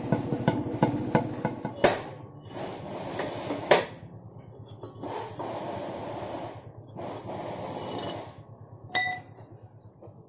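A metal rod scraping and clanking inside a motorcycle's chrome exhaust silencer as the old fibre packing is dug out, with a few sharp metallic clinks, one near the end ringing briefly. A regular knocking, about three times a second, runs through the first two seconds.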